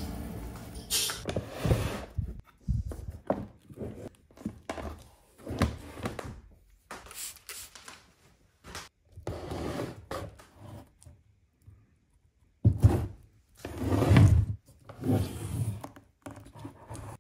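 Slices of bandsawn hawthorn burl being handled: irregular wooden knocks and rubbing as the pieces are shifted, pulled apart and set down, with two loud thunks about 13 and 14 seconds in. The bandsaw's steady running dies away in the first second.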